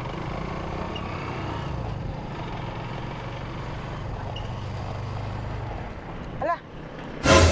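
Motorcycle engine of a tricycle running steadily under way, with road noise. Near the end there is a brief, sudden loud burst of noise.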